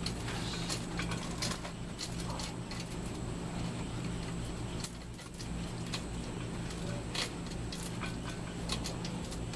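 Hand tools working on a seized engine's manifold and head bolts: scattered short metallic clicks and clinks over a steady low hum.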